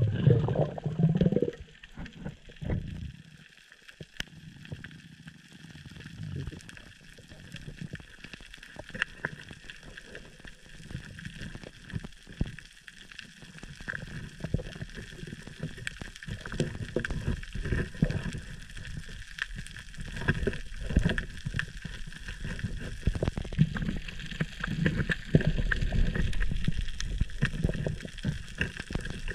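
Underwater sound through a diving camera: water rushing and gurgling with a low rumble and scattered small clicks and crackles. A louder rush of water comes in the first second or so as the diver goes under, and the rumble grows louder near the end.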